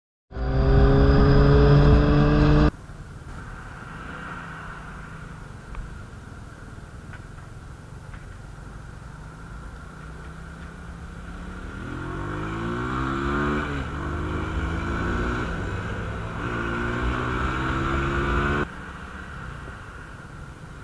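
A sport bike's engine revving loud as it accelerates, its pitch climbing, cutting off suddenly after about two and a half seconds. Then a quieter motorcycle riding in traffic, its engine rising in pitch in three pulls with a drop between each, from about halfway through until shortly before the end.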